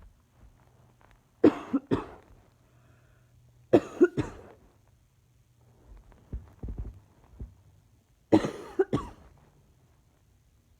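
A woman's chesty cough, in three bouts of two or three coughs each: about a second and a half in, about four seconds in, and near the end. A few soft low thumps fall between the second and third bouts.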